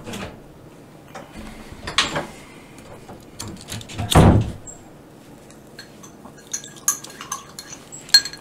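Scattered clicks and short noisy thumps over a low background, the loudest a brief thump about four seconds in and a run of sharp clicks near the end.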